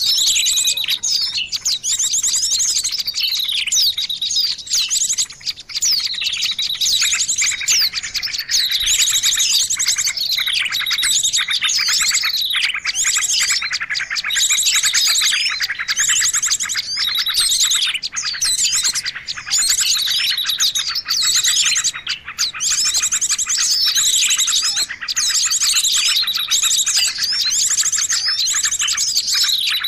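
Bird-trapping lure recording of small songbirds: a dense, unbroken mix of high chirps, fast trills and downward-sliding whistles, the same falling calls coming round every couple of seconds.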